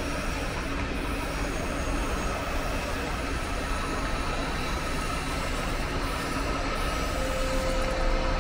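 Train running on the tracks: a steady rumble with a faint, steady high tone over it, growing a little louder near the end.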